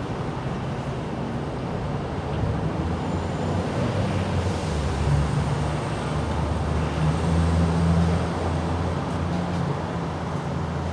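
Low engine drone of road traffic over a steady outdoor hiss, growing louder in the middle and easing off near the end.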